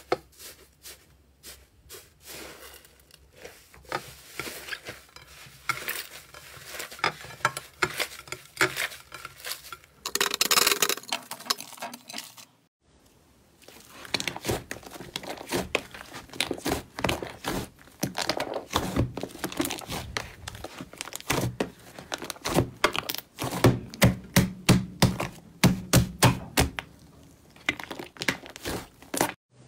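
Hands stretching and tearing a thick, fluffy orange slime, giving a run of crackles and tearing sounds. After a brief break, hands pressing and kneading a large mass of blue slime in a bowl, with loud, rapid pops and squelches.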